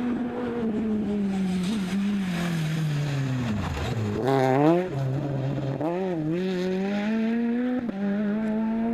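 Peugeot 208 R2 rally car's four-cylinder engine passing at racing speed: the engine note falls steadily as it slows into the corner, with quick rises in revs about four and a half seconds in and again about six seconds in, then it pulls away with the revs climbing.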